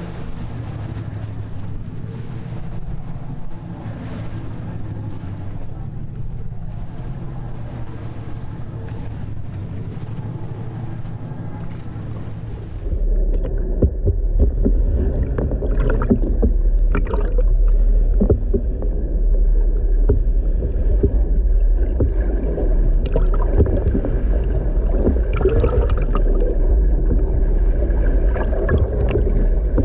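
A boat's engines idling with a steady hum and water noise, heard above the surface. About thirteen seconds in the sound switches to an underwater microphone: a loud, deep rumble of water with scattered clicks and knocks, and the engine hum still faintly present.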